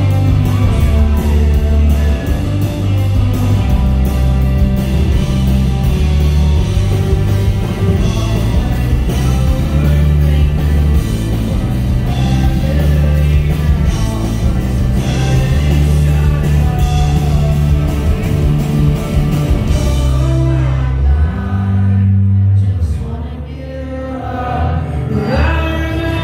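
Live band playing a rock song with acoustic guitar, electric guitar, pedal steel and drums, with a heavy bass and a sung vocal line. About 21 seconds in the band drops back to a quieter, thinner passage, and the voice comes back in near the end.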